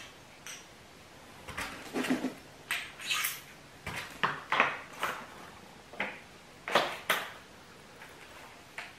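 Irregular metal clinks and clanks of tools and parts handled while working on a snowmobile's rear suspension, a dozen or so sharp strikes at uneven intervals.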